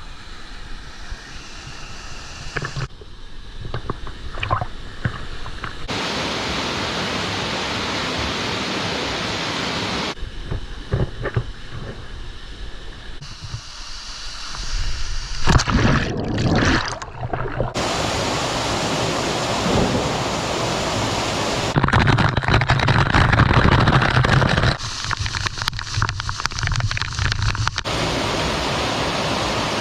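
Steady rushing of a waterfall, heard through a run of short clips that cut abruptly between louder and quieter takes.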